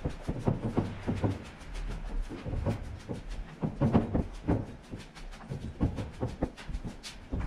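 Footsteps climbing a stairwell: quick, regular steps on hard stair treads, about three a second.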